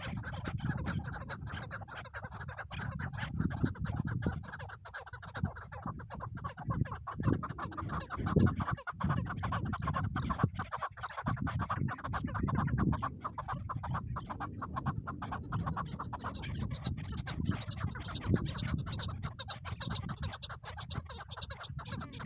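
Chukar partridges calling, a long run of rapid clucking chuck notes, over a low rumbling noise.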